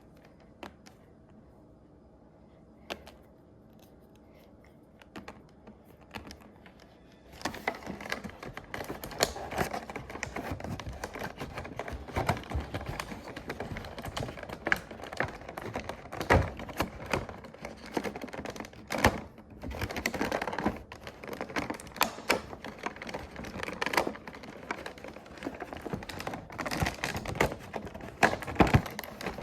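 Hands handling plastic toy packaging and small plastic toy pieces: a few light taps, then from about seven seconds in a dense run of irregular clicking, rattling and rustling.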